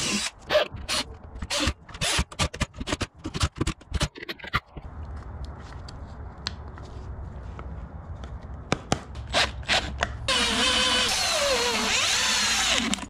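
Screwdriving and assembly on a subwoofer box: a quick run of sharp clicks and scrapes for the first few seconds, then a low steady hum with a few clicks. For the last few seconds a power drill-driver runs, its pitch sliding up and down as it drives the screws of the speaker terminal cup.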